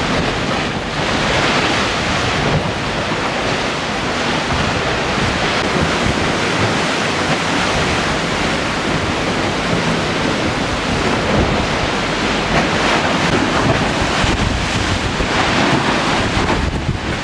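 Force 7 to 8 wind blowing across the microphone over the rush of a rough sea, a steady loud noise that swells about a second in and again near the end.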